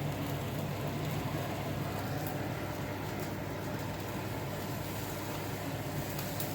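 Chicken sizzling on an electric grill: a steady hiss over a low hum, with a couple of faint pops.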